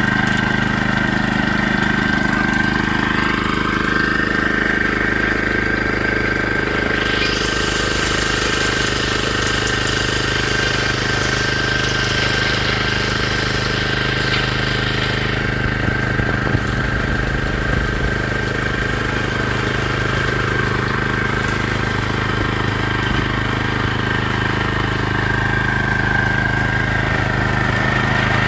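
Vehicle engine running with a steady low hum and a thin steady whine above it. About seven seconds in, a hiss of higher noise comes in; it drops away about halfway through.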